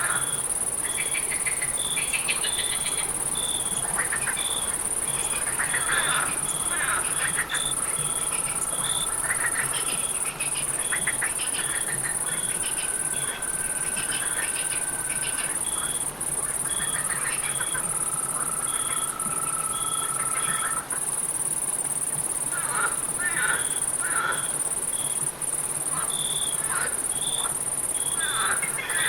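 Night chorus of crickets and frogs. A steady high insect trill runs under rows of short, evenly repeated cricket chirps, and short frog calls come and go. Three long held trills of a few seconds each sound in the middle.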